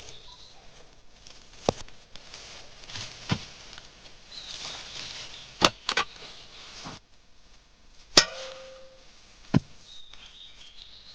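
Irregular sharp strikes of a metal hand tool, about seven in all, with rustling between them. The strike about eight seconds in gives a short metallic clang. A bird chirps faintly near the start.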